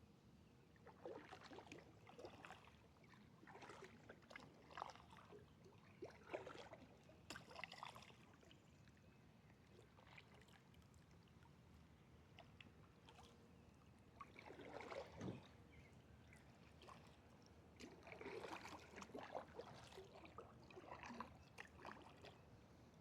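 Faint kayak paddle strokes in water: irregular clusters of splashes and drips, each lasting a second or two, with quiet gaps between them.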